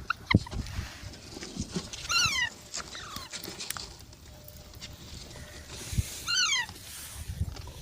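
A parrot gives two short squawks about four seconds apart, each sliding down in pitch, with faint clicks and rustling between them.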